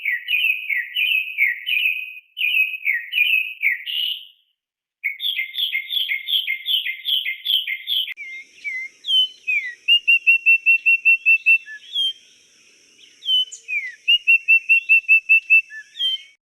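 Birdsong: a bird gives repeated whistled chirping phrases, with a short break about four seconds in. From about eight seconds a different song takes over: two quick runs of evenly repeated whistled notes over a faint steady high hiss.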